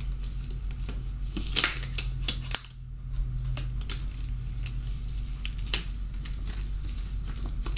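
Disposable gloves being pulled onto the hands: a run of sharp snaps and clicks with crinkling, the loudest about a second and a half to two and a half seconds in and another near the end, over a steady low hum.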